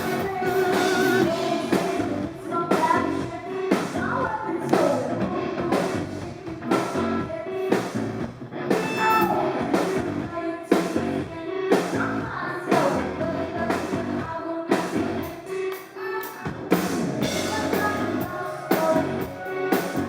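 Live synth-rock band playing: singing over drums, guitar and keyboards, picked up by a consumer camera's microphone.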